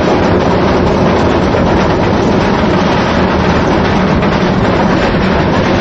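Steel roller coaster's lift-hill chain running steadily as the train is hauled up the lift hill: a constant mechanical clatter.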